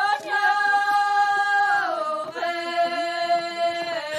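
Women's voices singing an unaccompanied folk song in two parts, with long held notes: the pitch steps down a little under two seconds in, and the next held note breaks off near the end.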